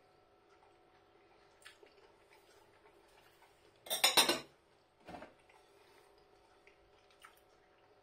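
A china dinner plate and a metal fork clattering together about four seconds in, followed a second later by a smaller knock. Between them there are only faint small ticks over a low steady hum.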